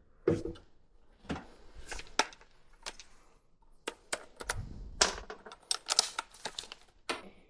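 Scattered sharp clicks, taps and knocks of tools and small metal parts being handled during a dishwasher installation. There is a dull thump just after the start, and a busier run of clatter from about four and a half to six seconds in.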